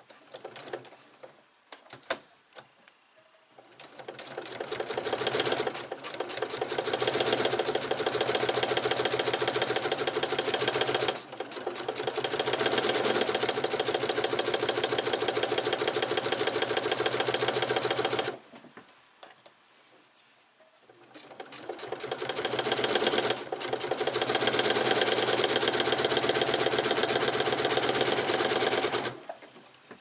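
Electric sewing machine stitching a fabric strip with vinyl tucked inside, with a few light clicks before it starts. It speeds up to a fast, steady whir a few seconds in, stops a little past the middle, then starts again, speeds up and stops shortly before the end.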